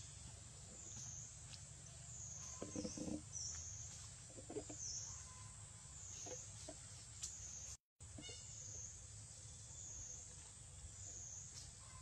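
Forest insects in a high, steady chorus that swells and fades about once a second. Two short, low monkey calls come about three and four and a half seconds in, and the sound drops out for a moment near eight seconds.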